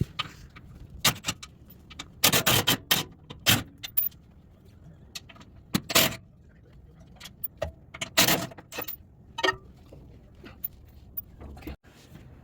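Scattered metallic clinks and short clattering bursts, a few seconds apart, from hand tools and 12 mm bolts as the steel underbody crossbars of a Toyota 4Runner are unbolted.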